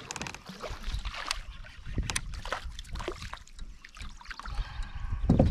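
Water splashing beside a fishing kayak as a small bass is reeled to the side and grabbed by hand, with scattered clicks and knocks and a louder thump near the end.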